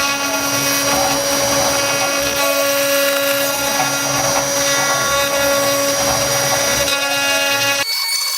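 CNC router running, its spindle giving a steady whine over loud cutting noise. Just before the end it cuts off abruptly to a thinner, higher sound.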